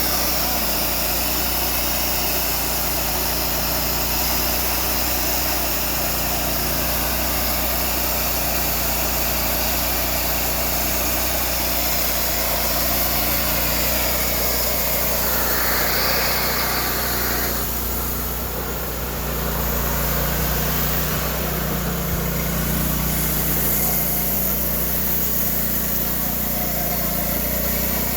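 Small gasoline engine of a homemade sawmill running steadily. Its sound shifts a little past the middle, dips briefly, then carries on.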